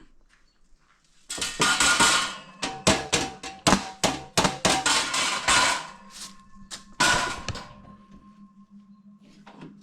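Metal toaster-oven trays and wire rack clattering and clanging as they are handled: a quick run of knocks and rattles, then one clang about seven seconds in that rings on for a couple of seconds.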